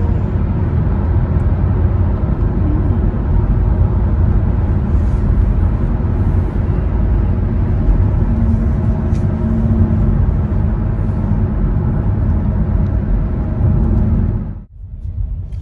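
A car on the move: a steady, loud, low engine and road rumble.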